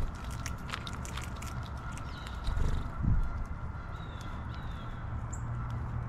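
Small birds, house sparrows among them, pecking and hopping among sunflower seed husks and peanuts on the ground: a quick scatter of small clicks, then two low thumps about halfway through, and a few faint short chirps later on.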